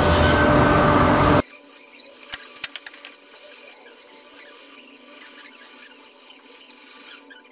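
A woodworking power tool running loud with a high whine stops abruptly about a second and a half in. After it, a faint background with a few sharp clicks shortly after.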